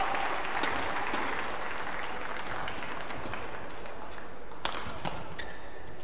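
Badminton rally: a few sharp racket strikes on the shuttlecock, the clearest two close together near the end, over steady crowd noise.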